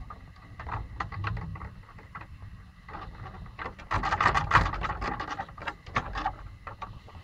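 Close-up clicking and rustling as a pomsky puppy chews a rubber ball and brushes its fur against the microphone, over a low rumble. The rustling gets louder and denser about four seconds in.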